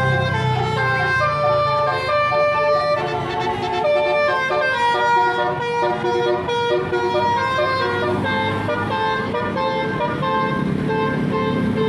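Bus 'telolet' horn: a multi-tone musical air horn playing a tune of held notes one after another, over a running bus engine.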